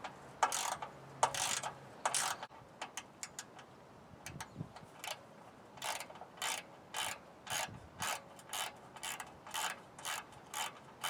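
Ratchet wrench with a 3/8 socket clicking in short repeated strokes as a bolt is backed out, at about two strokes a second in the second half.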